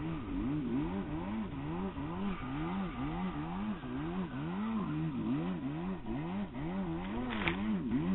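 Yamaha jet ski's two-stroke engine running hard, its revs surging up and down about twice a second as the hull skips over the surf chop, with rushing wind and water underneath. A sharp knock near the end.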